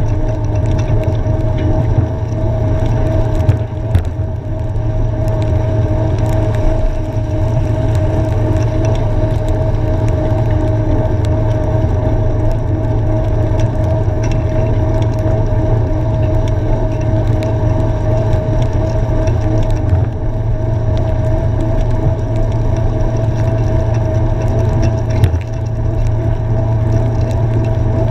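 Steady rumble of riding a bicycle on a wet road, heard through a bike-mounted camera: wind on the microphone and tyre noise, with a thin steady whine over it and a knock about four seconds in.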